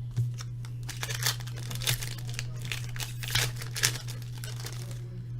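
Foil trading-card pack wrappers and cards being handled, a quick irregular run of crinkles and small crackles over a steady low electrical hum.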